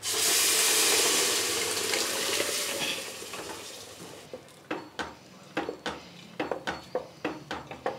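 Cooked dal poured into a hot oil tempering of mustard seed, cumin, dried chilli and garlic in a steel pot, which sets off a loud sizzle that fades away over about four seconds. After that comes a run of short knocks and scrapes as the wooden spatula stirs against the pot.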